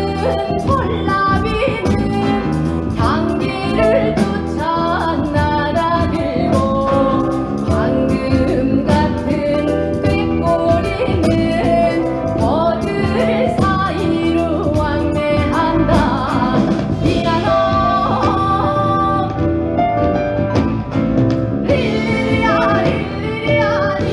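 A woman singing a Korean folk song (minyo) in a wavering traditional style, accompanied by flamenco guitar strumming in a fandango rhythm.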